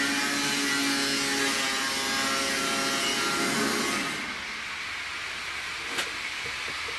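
A workshop power tool's motor running steadily with a hiss, cutting off abruptly about four seconds in and leaving a quieter low hum. A single sharp click comes about a second before the end.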